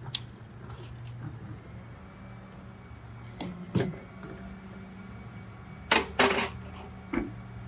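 A few sharp clicks and clunks from a caulking gun of Sikaflex sealant and a plastic cable-entry box being handled on a metal van roof, the loudest a close pair about two thirds of the way through, over a steady low hum.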